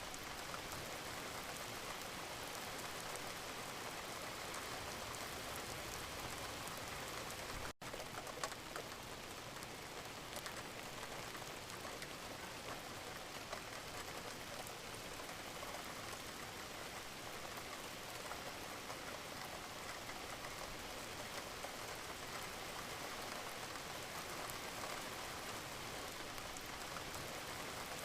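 Steady rain falling, an even hiss of many fine drops pattering on a surface, broken by a momentary gap about a third of the way in.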